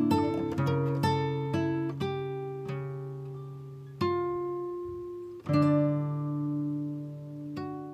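Background music: an acoustic guitar playing slow picked chords, each struck and left to ring out and fade.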